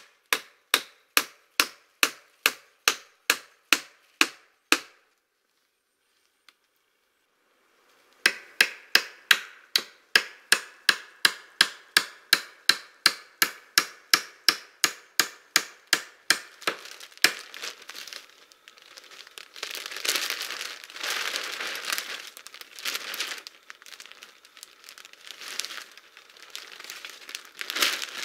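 Hammering on a log hut's wooden roof poles: rapid, even blows of about three a second, which stop, then resume a few seconds later for a longer run. In the last ten seconds the blows give way to the crinkling and rustling of clear plastic sheeting being spread over the roof.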